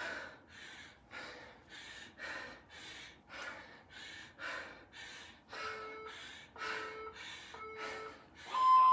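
A woman breathing hard and fast while doing air squats, about two loud breaths a second. Past the halfway point an interval timer gives three short beeps about a second apart, then a longer, higher beep that marks the end of the interval.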